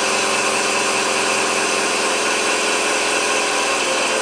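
Floë Induratec 636 drain-down compressor running steadily, building air pressure back up in the caravan's water pipes after a tap has been closed.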